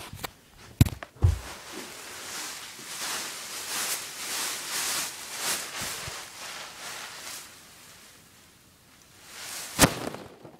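Handling noise from the recording camera as it is moved about. There are two sharp knocks about a second in, then several seconds of close rustling and scraping, then a single loud knock near the end.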